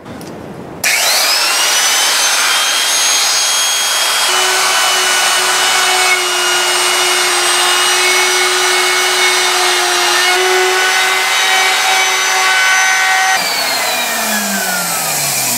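Electric plunge router spinning up with a rising whine about a second in, then running steadily as its flat-cutting bit routs a shallow channel along a wooden axe handle. Near the end it is switched off and the whine falls as the motor winds down.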